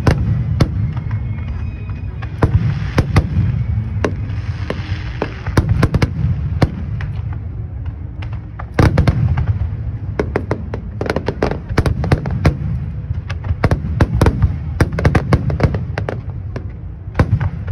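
Large aerial fireworks display: shell bursts banging and crackling over a continuous low rumble, with a loud burst about halfway through followed by a dense rapid volley of reports.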